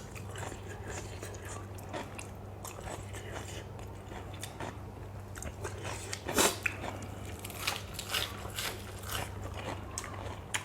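A person chewing and crunching a mouthful of spicy lotus-stem salad with raw shrimp, close to the microphone: irregular crunches and clicks, one louder crunch about six seconds in, over a steady low hum.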